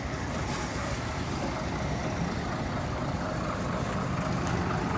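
Heavy vehicle engine running steadily as a tipper truck moves slowly close by over dirt, with no clear change in pitch.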